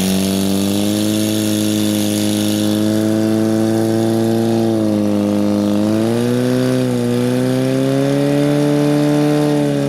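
Portable fire pump engine running at high revs, driving water through the hoses during a fire attack. Its steady pitch dips about five seconds in, climbs back up a second later, and starts to fall near the end.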